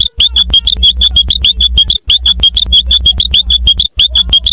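Cartoon sound effect blown up to extreme volume and heavily distorted: a rapid train of short high chirps, about nine a second, over a clipped low rumble, looping roughly every two seconds with brief cut-outs between loops.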